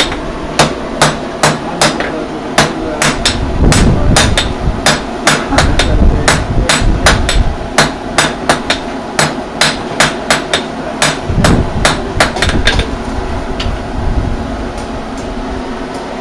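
Blacksmith's hammer striking a red-hot iron bar on an anvil in a steady rhythm of about two blows a second. The blows slow and stop a few seconds before the end.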